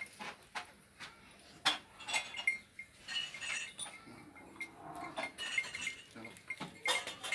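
Scattered light clinks and tinkles, with a few sharp knocks.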